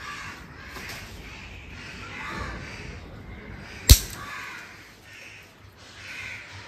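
Scissors snip once through the tail of a plastic cable tie, a single sharp click about four seconds in, trimming off the excess tie. Birds call in the background.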